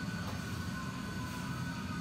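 Steady low rumble of restaurant room noise, with a faint high tone held throughout.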